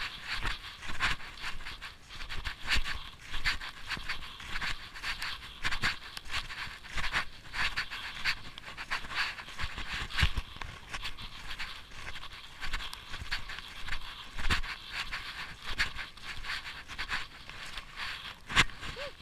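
Steady panting in a fast, even rhythm, breath after breath, while snowshoeing.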